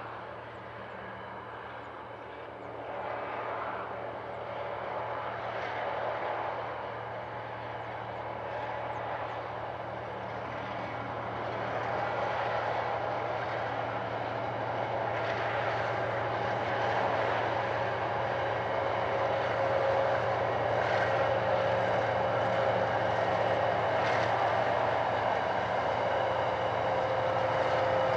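Diesel locomotives 1303 and GWN003 hauling an empty iron ore train, a steady engine drone that grows louder as the train approaches.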